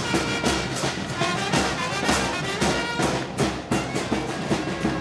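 Brass band music with drums keeping a steady beat.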